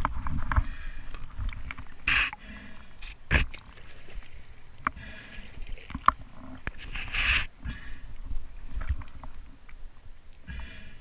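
Water sloshing and splashing around a diver's inflatable surface float, with loud breaths every two to three seconds and a few sharp knocks of gear against the float.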